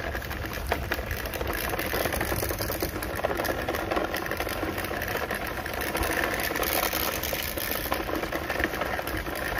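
Toy RC car's small electric motor and gearbox whirring steadily as it is driven.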